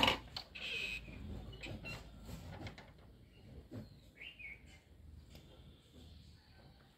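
A sharp knock at the very start, then faint scattered scuffles and rustles, with one short rising bird chirp about four seconds in.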